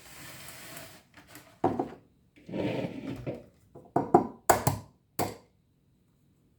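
Objects being handled on a kitchen counter: a brief rustle, then scattered knocks and clatter, with a few sharp loud taps about four to five seconds in.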